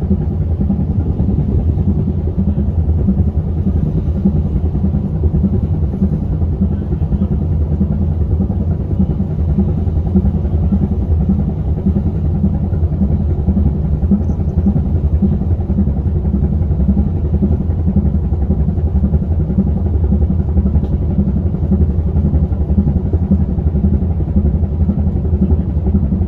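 Ferry's diesel engines running steadily, a deep, even rumble that does not rise or fall.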